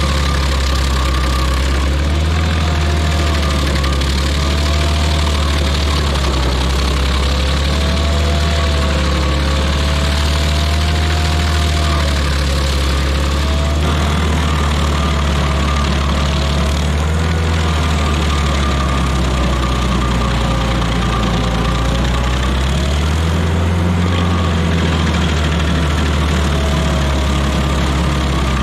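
Rayco RG50 stump grinder running hard as its cutter wheel grinds a pine stump into chips. The engine noise is loud and steady, and its pitch wavers up and down a little as the wheel bites.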